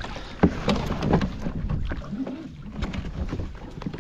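Kayak paddle strokes splashing in shallow water, with several sharp knocks among them and wind on the microphone.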